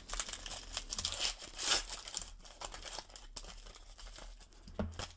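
A 2001 Fleer Tradition baseball card wax pack being torn open by hand: its wrapper crinkles and tears in a run of short bursts, loudest a little under two seconds in.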